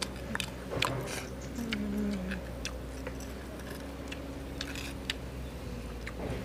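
Scattered light clicks and crackles, as of scaly rattan fruit being handled and picked over, with a short faint low voice sound about two seconds in.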